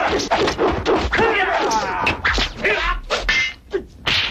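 Movie fight-scene sound effects: a quick run of whacks and slaps mixed with shouts and grunts. It drops quieter for a moment near the end, then another loud hit comes in.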